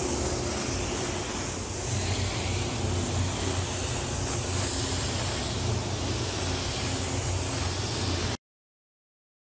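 Gravity-feed spray gun hissing steadily as it lays down a coat of black paint, with a low steady hum underneath. The sound cuts off abruptly about eight seconds in.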